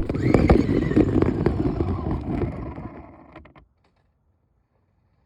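Toy RC car driving off: a small electric motor whines and the wheels and chassis rattle. The sound cuts off abruptly about three and a half seconds in.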